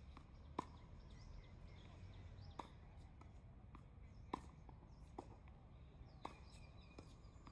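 Tennis rally: sharp racket-on-ball strikes and ball bounces about every one to two seconds, the loudest two from the near player's shots. Faint birdsong in the background.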